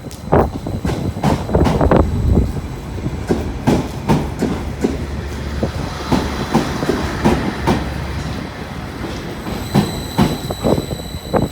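Passenger train moving through the station, its wheels clicking and knocking over the rail joints, with a low engine hum that drops away about halfway through.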